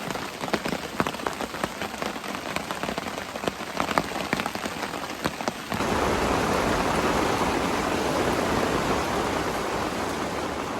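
Heavy rain: many separate drops tapping close by, then about halfway it changes abruptly to a steady, denser, louder rush of rain.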